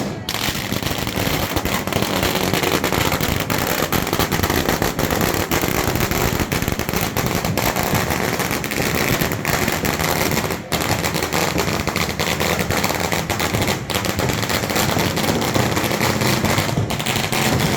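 Firecrackers going off in a rapid, unbroken crackle of sharp bangs, many a second, loud throughout.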